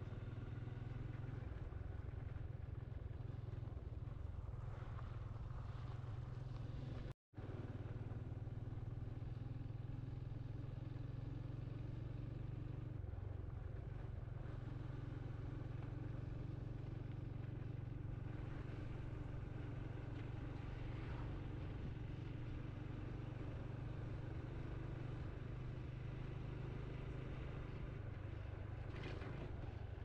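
Motorcycle engine running steadily at cruising speed as the bike rides along a road. The sound cuts out for an instant about seven seconds in.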